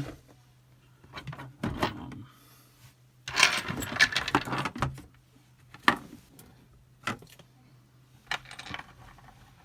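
Small metal lock parts and tools being handled and set down on a hard surface: scattered clicks and knocks, with a burst of rattling metallic clatter around the middle.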